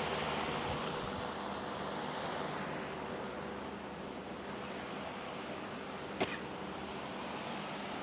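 An insect chirring steadily in rapid, even high-pitched pulses over a constant outdoor hiss, with one sharp click about six seconds in.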